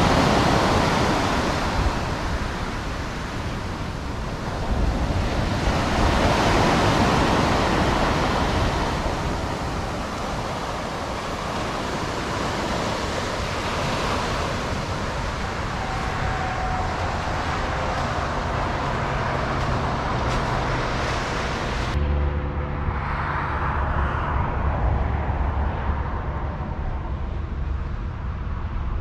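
Ocean surf breaking on a steep sandy beach: a steady wash that swells with each incoming wave every several seconds. About three-quarters of the way through it gives way to a steadier low rumble of wind and distant road traffic.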